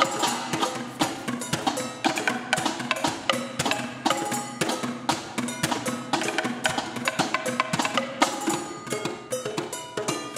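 A percussion ensemble strikes kitchenware such as pots, pans and bowls in a fast, busy rhythm. Many of the strokes ring with clear pitches.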